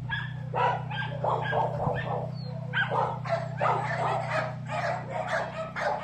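A small terrier barking and yipping in quick, repeated calls, several a second, over a steady low hum.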